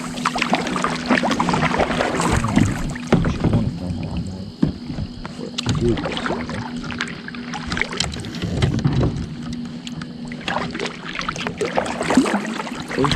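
Water splashing and slapping around a kayak, with irregular knocks against the hull.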